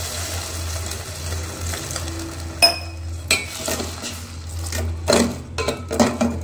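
Steel ladle stirring milk into caramelised jaggery in a steel pot, knocking against the pot several times, mostly in the second half.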